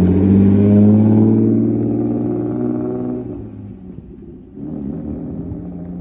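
BMW E30's engine revving as the car pulls away, the sound fading over about three seconds as it moves off; a second, weaker swell of engine sound comes about four and a half seconds in.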